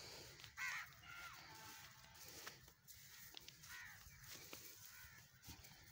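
Two short bird calls, the first about half a second in and the second near four seconds in, over faint outdoor background.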